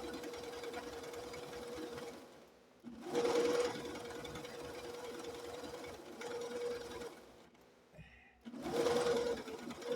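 Sewing machine stitching through quilt layers in three runs, with a steady motor whine, stopping briefly about two and a half seconds in and again near the end.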